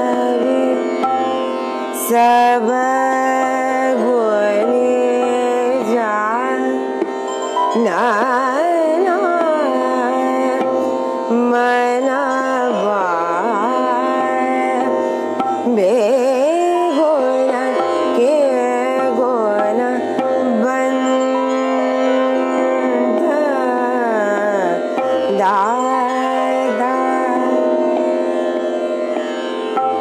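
A woman singing a slow Indian classical-style melody full of gliding ornaments over a steady drone, with low drum strokes underneath. The voice falls away near the end, leaving the drone.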